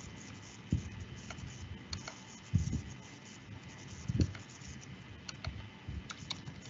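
Scattered clicks and taps of a computer mouse and keyboard, with a few dull thumps, over a faint steady hiss.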